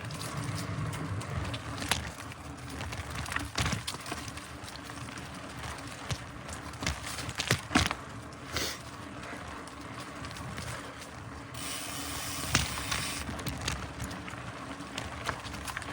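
Mountain bike riding over a dirt trail: the tyres rolling, with frequent sharp knocks and rattles of the bike over bumps.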